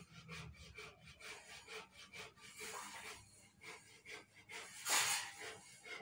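Long steel sawmill bandsaw blade being pulled hand over hand, rubbing and clinking in a run of short scrapes, with one louder scrape about five seconds in.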